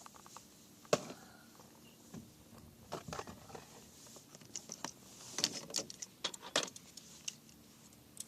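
Faint, scattered small splashes and knocks from a canoe paddle dipping into the lake and bumping the hull, with a brief patch of splashing and dripping water in the middle.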